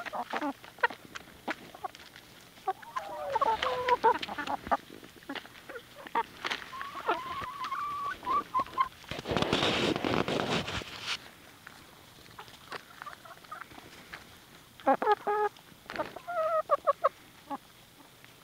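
Barred Plymouth Rock hens clucking in short pitched calls while pecking at food, with many sharp taps of beaks on the ground. A burst of noise lasting about two seconds comes midway.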